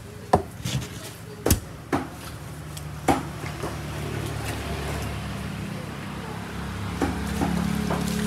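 Sharp knocks of a large milkfish and a knife on a wooden chopping block, four loud ones in the first three seconds and a few lighter ones near the end. A low steady engine hum comes in about two and a half seconds in and grows louder toward the end.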